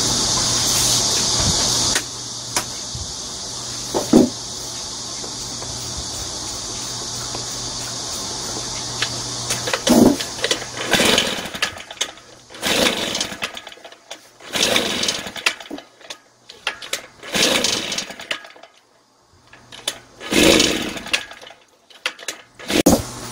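Shindaiwa EB803 engine blower being pull-started over and over: from about ten seconds in, a string of recoil-starter pulls one to two seconds apart, the engine turning over on each pull without catching. It is a no-start.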